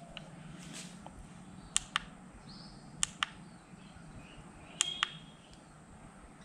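Sharp clicks of the push button on a Lista LED bicycle headlight being pressed: one click, then two quick pairs, as the lamp steps through its light modes.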